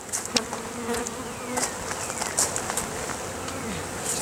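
Honeybees buzzing around an opened hive, with single bees flying close past now and then with a falling pitch. A few light clicks sound over the buzzing.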